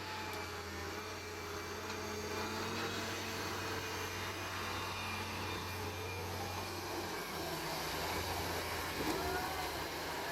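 Engine of a heavy digging machine running steadily, with a strong low hum that shifts a little about seven seconds in.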